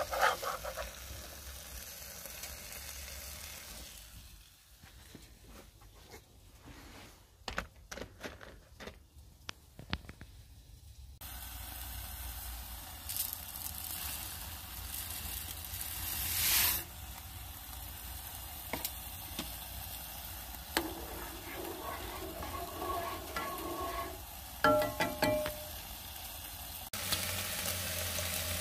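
Diced chicken sizzling as it fries in a non-stick pan, with a fork clicking and scraping as it turns the pieces. Partway through, dry rice is poured into a pot of boiling water.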